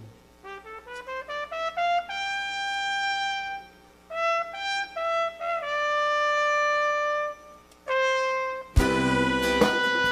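Trumpets play an exposed passage with almost no accompaniment: a quick rising run of short notes, then long held notes separated by brief pauses. Near the end the full brass band and drums come in loudly.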